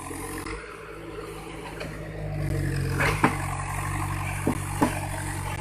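Case 580 Super M backhoe loader's diesel engine running, getting louder about two seconds in as it takes up more power. A few short sharp knocks come through in the second half.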